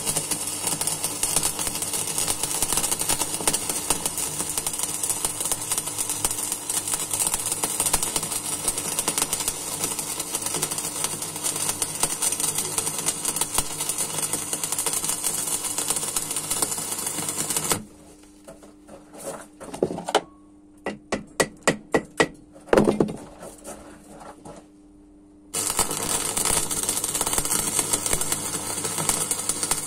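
Stick (arc) welding: the electric arc crackling and hissing steadily. A little past halfway the arc cuts out for several seconds, during which a quick run of sharp taps is heard. Then the arc strikes up again and crackles on.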